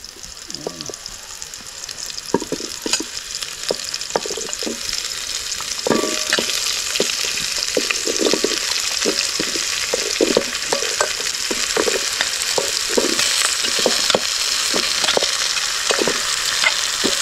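Squash chunks sizzling in hot oil in an aluminium pot as they are sautéed, with frequent short knocks and scrapes of stirring against the pot. The sizzle builds up over the first several seconds, then holds steady.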